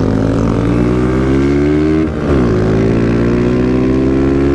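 Honda CG 160 single-cylinder motorcycle engine accelerating hard, its pitch climbing. About two seconds in it drops briefly for an upshift, then climbs again in the next gear.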